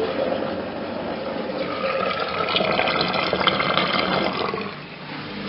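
Washing machine draining its wash water at the start of the drain-and-spin cycle: water gurgling out through the drain pump, dying away near the end as the drum empties.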